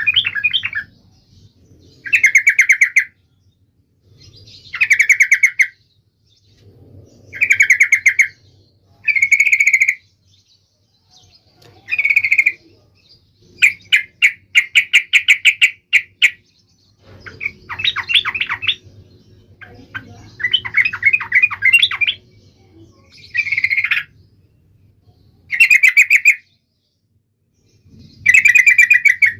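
Yellow-vented bulbul (trucuk) singing in short, bubbly, chattering phrases, about one every two to three seconds, with one longer run of rapid repeated notes around the middle.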